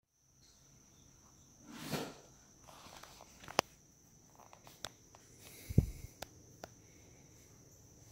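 A few sharp clicks and knocks from handling the drain stopper in a stainless steel sink, the loudest a low thump about six seconds in, over a faint steady high whine.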